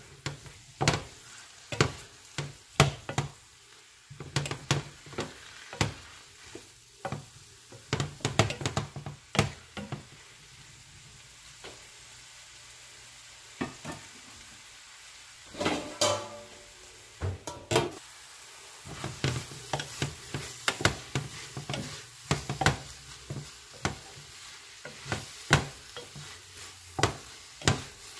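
Wooden spatula stirring fried cabbage, sausage and peppers in a stainless steel skillet: repeated scraping and sharp knocks against the pan, over a low sizzle. The stirring stops for several seconds in the middle, then picks up again.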